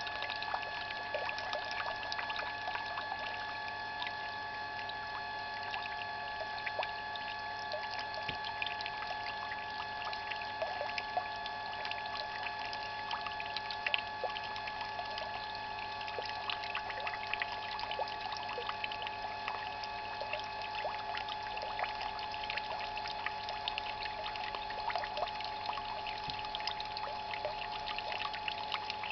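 Grape juice trickling steadily from the spout of a wooden basket wine press into a plastic tub, with fine splashing ticks. Underneath is a steady whine from the transfer pump carrying the juice to the cellar.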